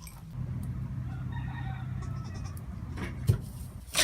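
A Nigerian Dwarf goat bleats once in a long, steady call lasting about two seconds. A sharp knock follows about three seconds in.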